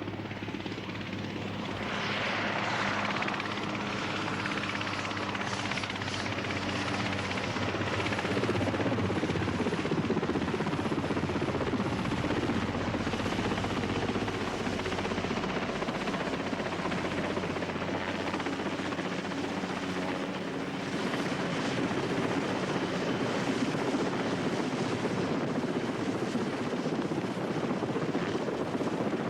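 Westland Wessex helicopter running overhead as it comes in to a ship's flight deck: a loud, steady rotor and engine din that grows a little louder about two seconds in and again about eight seconds in.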